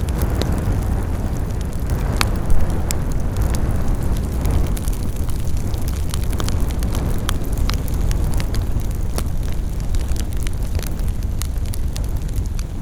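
Wood campfire burning: a steady low rushing of the flames with frequent sharp crackles and pops of the wood, one louder pop about two and a half seconds in.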